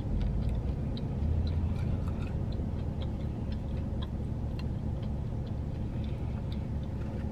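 Close-mic chewing of food: soft, irregular mouth clicks and smacks, over a steady low hum inside a car.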